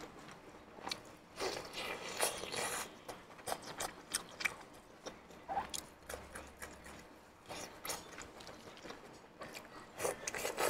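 Close-up ASMR chewing and biting of sauce-coated pork intestine rings: irregular wet mouth sounds and short smacks, with louder bursts about two seconds in and near the end.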